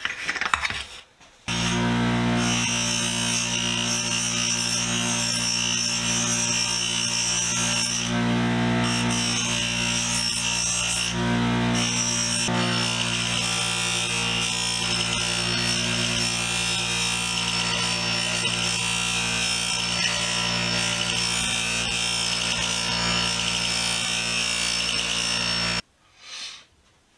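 Buffing wheel on a motor running steadily while polishing the brass canister of a pump oiler. It has a steady motor hum and a high hiss. It starts suddenly about a second and a half in and cuts off suddenly near the end.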